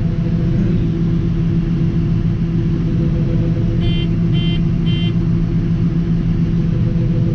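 Combine harvester engine running at a steady drone, heard from inside the cab. About four seconds in, three short electronic beeps sound in quick succession, about half a second apart.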